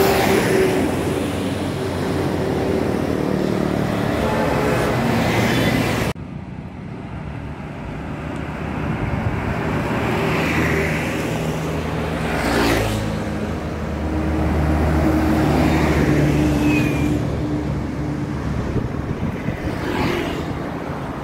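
Buses running and passing along a road among traffic noise, with no horn sounding. The sound changes abruptly about six seconds in.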